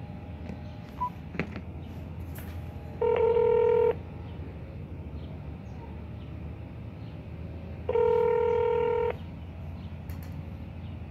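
Telephone ringback tone played through a smartphone's speakerphone while an outgoing call connects: two rings, each about a second long and about five seconds apart.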